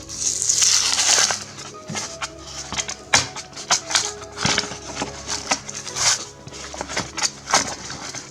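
Hot Wheels blister card being torn open: a loud ripping tear in about the first second, then repeated crackling and crinkling of the plastic blister and cardboard, over background music.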